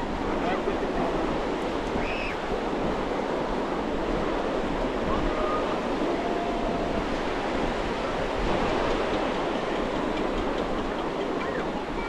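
Ocean surf breaking and washing up the beach in a steady, continuous rush.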